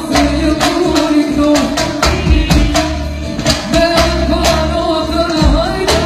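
Band music: a drum kit played to a steady beat, with heavy bass and a held, bending melody line over it.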